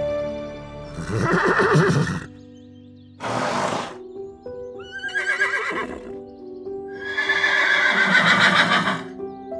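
An animal calling loudly four times over background music, the last call long with a wavering, falling pitch.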